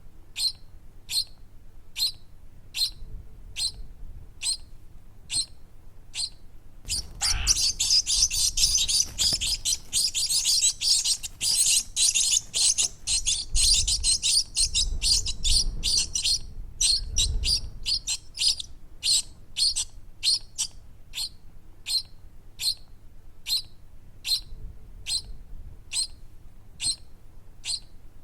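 Baby birds chirping: short high chirps repeating two to three times a second. About seven seconds in, many more chirps join in a dense chorus for around nine seconds, then it thins back to single chirps.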